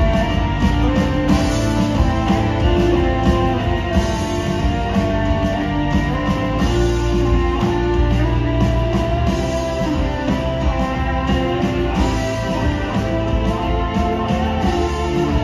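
Live band playing an instrumental passage, electric guitar prominent over the rest of the ensemble.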